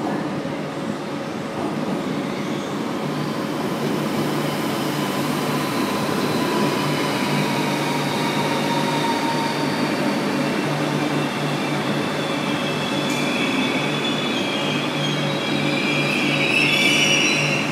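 A Renfe Cercanías commuter train running along the adjacent track in the tunnel, with a steady rumble and wheel squeal that is loudest near the end. A steady low hum sits under it.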